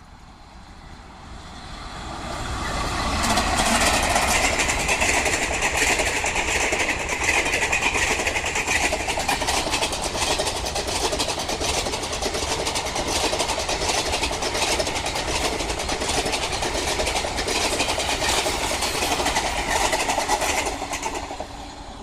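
Passenger express train running past on the rails, its wheels making a rapid cracking over the track. It builds up over the first few seconds, holds steady and loud, and fades away near the end.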